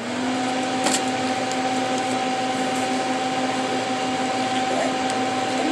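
Electric nail dryer's fan motor running with a steady whining hum; it spins up just at the start, its pitch rising and then holding steady.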